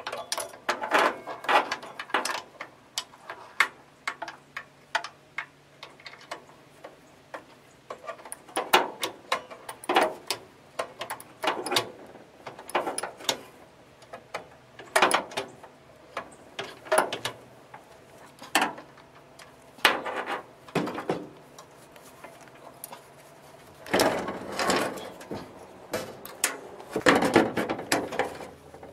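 Irregular metallic clicks and clinks of hand tools, in short clusters, as the starter's mounting bolts are snugged down on a 4A032 engine to hold the pinion's mesh with the flywheel ring gear.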